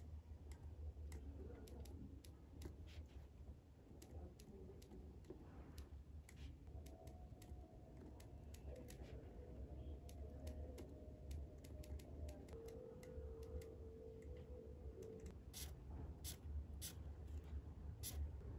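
Faint scattered small clicks and light scratching from close hand work, over a low steady room hum.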